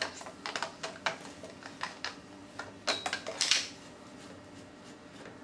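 Plastic clicks, knocks and scrapes as the clear filter housing of an Unger HiFlo reverse-osmosis unit is unscrewed with a plastic filter key and then turned by hand. The loudest rattle comes about three and a half seconds in, after which the handling goes quiet.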